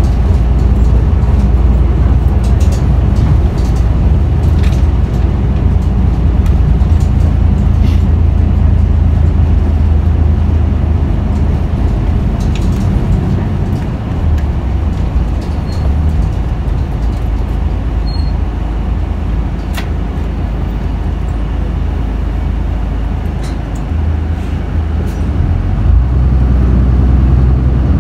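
Isuzu Erga route bus's diesel engine running, heard from inside the bus. The engine's low drone is strong at first, eases off through the middle and builds again near the end, with scattered light clicks and rattles throughout.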